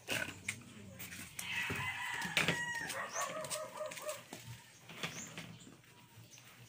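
A rooster crowing once, a long call of nearly three seconds that starts about a second and a half in and drops and wavers in pitch toward the end, with scattered sharp clicks around it.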